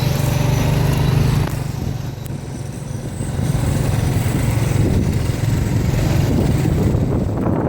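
ATV engine running, a steady low hum that eases off about a second and a half in and builds up again.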